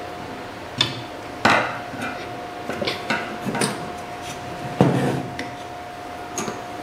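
Metal parts and tools being handled during assembly of a power supply: a handful of separate knocks and clinks, the loudest about one and a half and five seconds in, over a steady faint tone.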